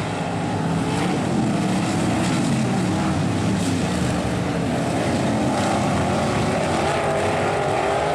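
Several sprint car engines running hard around a dirt oval, a dense steady drone whose pitch wavers up and down as the cars go around.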